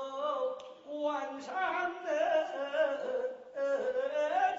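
A man's voice singing short phrases of held, wavering notes, breaking off briefly about a second in and again about three and a half seconds in, as a demonstration of a kind of singing voice.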